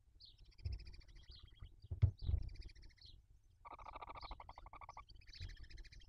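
Barn owls in the nest giving rapid, buzzy chittering calls in several bouts, the longest and lowest-pitched in the second half, as an adult feeds torn prey to its chicks. Soft thumps and rustles of movement in the nest litter come in between.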